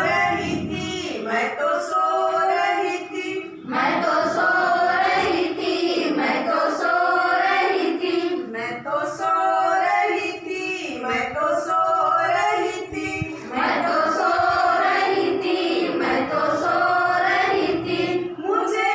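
A group of women singing a children's action song together, unaccompanied, in short phrases with brief breaks between them.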